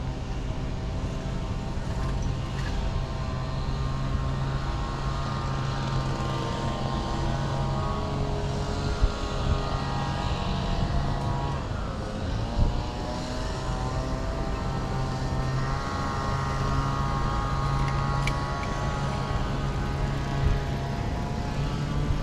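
Road traffic: motor vehicle engines running with a steady low hum, one engine's pitch dipping and then climbing again about halfway through.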